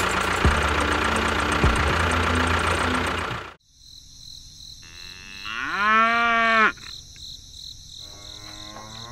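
Tractor engine running with a few knocks, cutting off suddenly after about three and a half seconds. Then a cow moos once, a long call rising in pitch, and a second moo begins right at the end.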